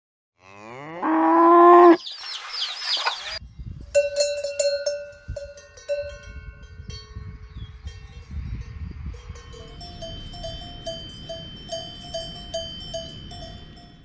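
A cow moos once, a long call rising in pitch. Then cowbells clank and ring, settling into an even clanging of about three strokes a second.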